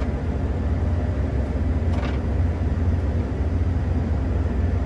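New Holland combine harvester running at work, a steady deep engine and machinery rumble.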